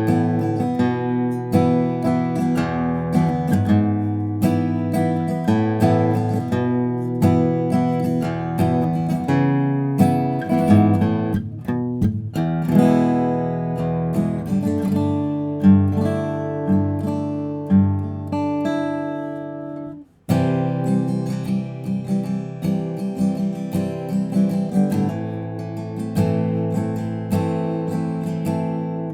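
Guild JF-30 jumbo flattop acoustic guitar being played: a run of picked notes and strummed chords, breaking off briefly about two-thirds of the way through before the playing resumes.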